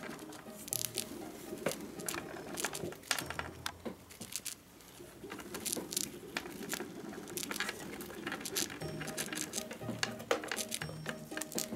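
Roborovski dwarf hamsters gnawing tamago boro egg biscuits: a rapid, irregular run of tiny crisp crunching clicks.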